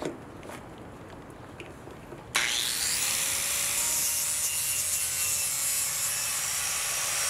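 A few light clicks, then about two seconds in an angle grinder with a wire wheel starts suddenly and runs steadily, scrubbing the old finish off a plywood panel.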